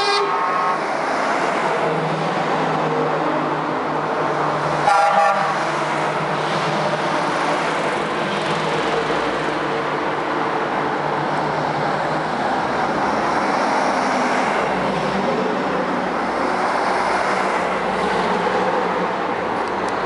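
Big-rig truck horns: one blast ending just after the start, then a short, louder blast about five seconds in, over the steady noise of trucks passing on the road.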